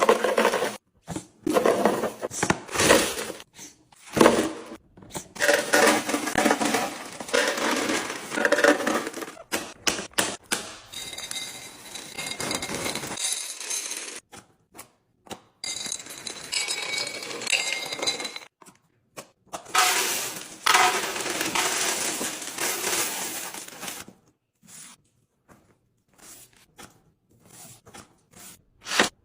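Food containers and packaging being handled and set into place for restocking: clinks, scrapes, knocks and crinkling in a string of short clips with abrupt cuts between them, some clinks ringing briefly.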